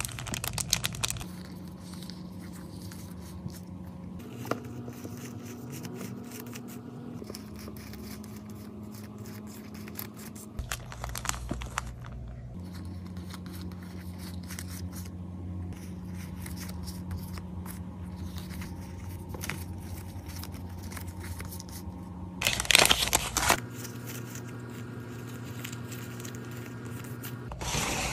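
Paper and plastic sticker packaging handled and opened by hand: crinkling and tearing in four short louder bursts (at the start, around eleven seconds, around twenty-three seconds and at the end), with faint rustles and clicks between, over a steady low hum.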